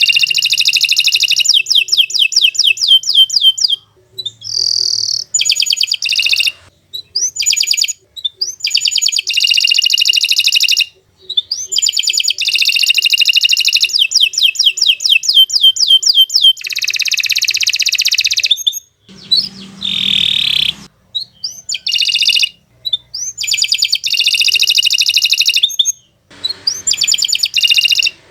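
Domestic canary singing long, fast phrases of rapid trills and rolling repeated notes, broken by short pauses every few seconds.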